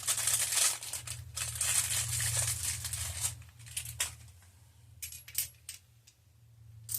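Packaging crinkling and rustling as new spark plugs are handled and unwrapped for about three seconds, then a few separate sharp clicks.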